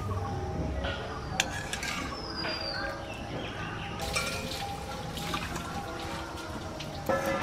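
Water dripping and splashing as soaked lentils are lifted out with a wire-mesh strainer. About four seconds in, the soaking water is poured from an aluminium karahi into a steel bowl, with a few light metal clinks.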